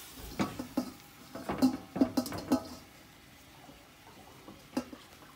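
A metal spoon knocking and clinking against a stockpot and a stainless steel bowl as boiled chicken pieces are lifted out and set down. There are a quick series of clinks in the first couple of seconds and one more knock near the end.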